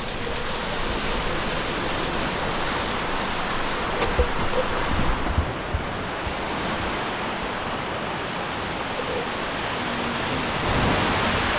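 Mountain creek cascading and rushing over rocks beside a footbridge, a steady loud roar of water, with a few dull knocks around the middle.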